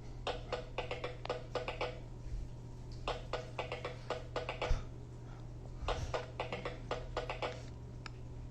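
Fisher-Price Code 'N Learn Kinderbot toy robot playing a tinny electronic dance tune through its small speaker: three phrases of quick, clicky notes with short gaps between them, over a steady low hum. A low thump comes a little past the middle.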